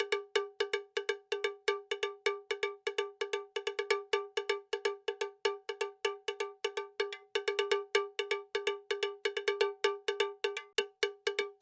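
A small bell struck over and over in quick succession, about five strikes a second, each a short ringing note of the same pitch.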